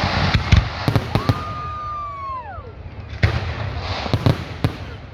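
Fireworks going off: a quick run of sharp bangs, then a firework's whistle that holds one pitch for about a second before falling away, then more bangs.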